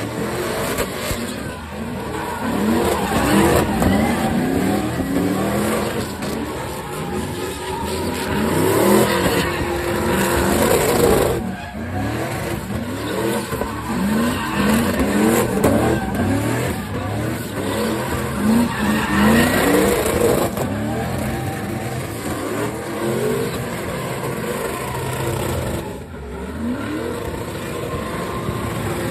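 Chevrolet pickup trucks doing burnouts and donuts: engines revving up again and again while the rear tyres spin and squeal on the pavement.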